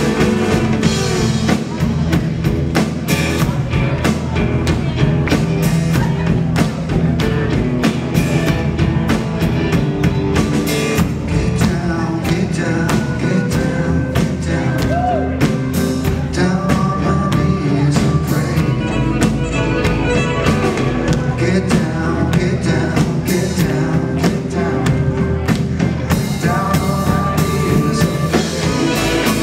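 Live band playing a rock song: drum kit keeping a steady beat under guitar and keyboard, with a bowed violin.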